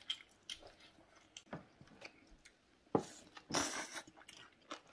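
Quiet eating sounds: a few light clicks of wooden chopsticks against a ceramic plate, a sharper click about three seconds in, then a short slurp as food is sucked in from the plate.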